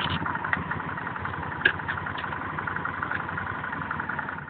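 An engine running steadily at idle, with a few short clicks, the sharpest about one and a half seconds in.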